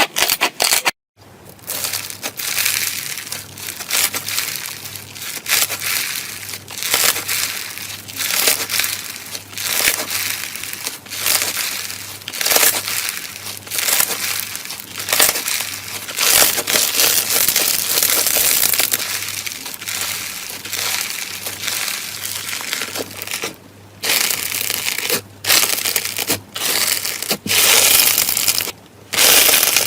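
Crunchy slime being squeezed and pressed by hand, giving dense crackling and crunching in repeated bursts, with a brief break about a second in.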